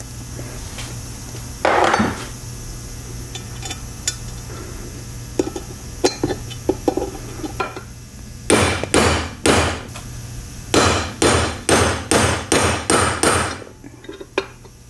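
Hammer blows driving a roll pin into a Super T10 four-speed's extension housing, pinning the reverse idler shaft. One blow comes about two seconds in, then a few light taps, then quick runs of strikes about three a second through the second half.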